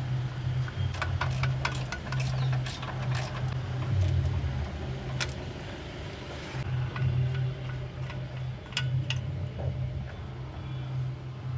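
Hand tools and bolts clicking and clinking against metal as work goes on under a car's gearbox, in a burst of quick clicks a second or so in and a few more later, over a steady low hum.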